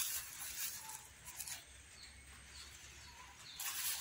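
Spoonfuls of ground charcoal being tipped into a cut plastic bottle of water: short scraping, rustling bursts, the first one sudden and three or four in all.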